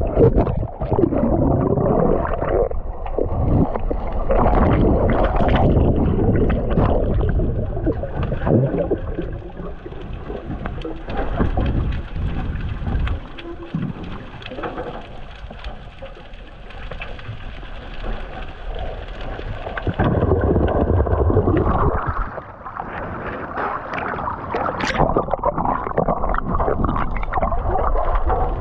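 Muffled underwater rushing and gurgling of seawater as a free-diver swims down to the seabed. It surges loudly at first, falls quieter in the middle, and swells again about twenty seconds in.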